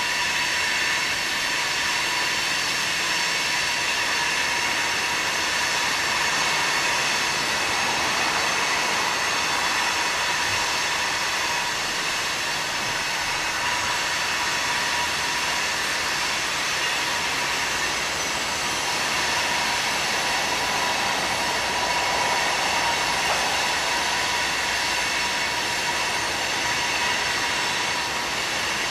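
Loaded coal hopper cars rolling past with loud wheel flange squeal: several steady high-pitched squealing tones ring continuously over the rolling wheel noise.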